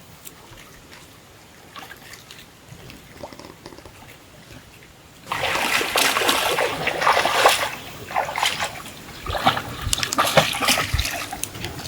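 Water splashing hard in irregular bursts, starting suddenly about five seconds in after a quieter stretch with a few faint clicks.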